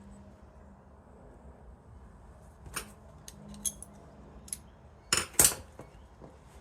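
Small metal parts of an old electric organ clinking and clicking as they are handled: a few light taps about three seconds in, then two sharp clicks near the end.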